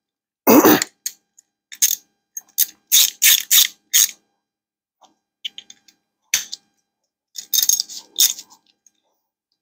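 A metal clatter about half a second in, then a hand ratchet clicking in short runs as screws are run down and tightened.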